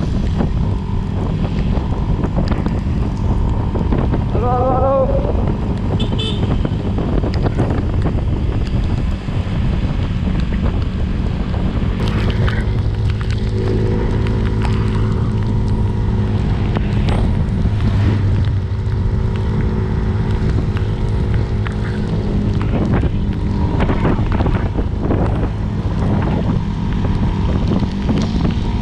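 Motorcycle riding uphill in traffic: steady engine and road noise with wind buffeting the microphone, and a vehicle horn tooting briefly around the middle.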